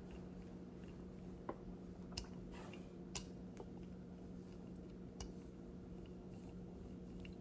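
Faint scattered clicks and light taps of dough being spread out on a work surface, over a steady low hum.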